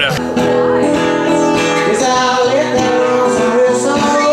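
Live acoustic guitar being strummed, with a man singing along in long held notes.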